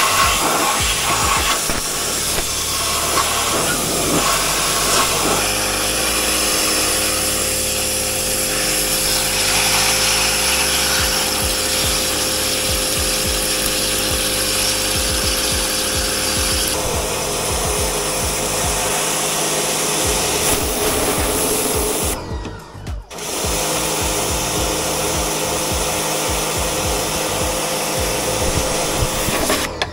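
Pressure washer jet blasting mud off a bare aluminium car body shell, a steady hiss of spray over the washer's pump running with a steady hum. The spray breaks off briefly about two-thirds of the way through.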